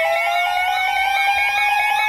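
A warning siren winding up, its pitch climbing smoothly, layered over a fast warbling alarm tone and a pulsing high beep, sounding for a tornado warning.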